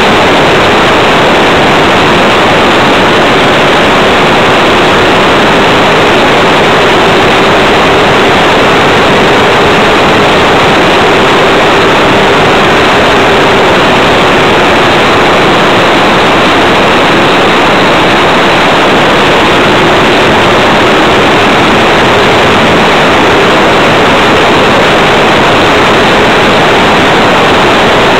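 Radio-controlled Tiger Moth model biplane in flight, heard from a camera mounted on the aircraft: a steady, loud rush of motor, propeller and wind noise with a faint drone that drifts slightly up and down in pitch.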